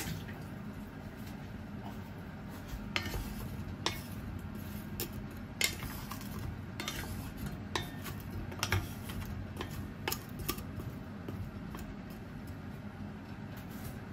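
A wooden spatula stirring chunks of raw potato, carrot and onion in an enamel pot. Scattered light knocks and scrapes come for several seconds from about three seconds in.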